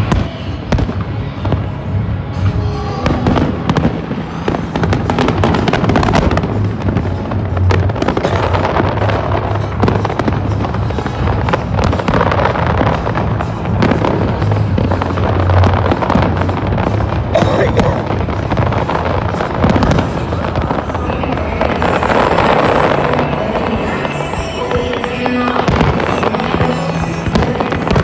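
Fireworks display: a continuous run of shell bursts, bangs and crackling.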